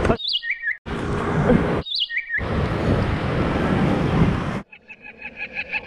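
Electronic chirps from a pedestrian crossing signal, each a short high note stepping down in pitch. They alternate with louder bursts of street traffic noise. Near the end the signal chirps in a fast, even run of several chirps a second.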